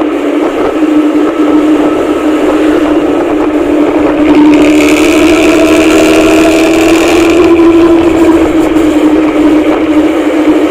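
Bus engine and exhaust droning steadily, swelling louder and harsher for a few seconds near the middle.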